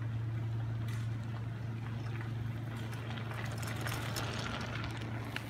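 A steady low machine hum, with the crunch of bicycle tyres rolling over gravel as the bikes come closer.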